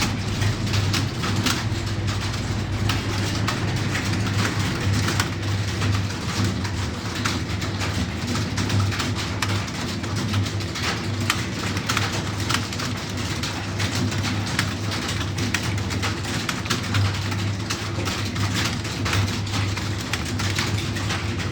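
Computer keyboard being typed on fast: a dense, irregular stream of key clicks over a steady low hum.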